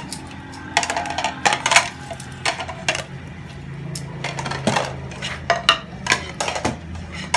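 Stacked plates clattering and clinking as they are handled, a rapid irregular run of sharp knocks, over a steady low hum.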